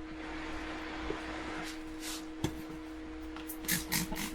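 Metal tire irons scraping and clicking against a dirt bike wheel rim as the old rear tire is levered off, with one sharp click midway and a run of quick clinks near the end. A steady low hum runs underneath.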